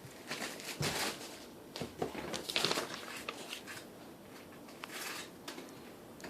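Rustling and crinkling of food packaging with a few small knocks and clicks, in irregular bursts as things are handled.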